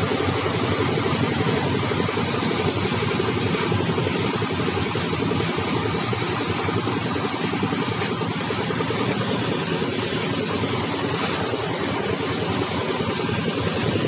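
Engine of a portable concrete mixer running steadily as it discharges wet concrete down a chute.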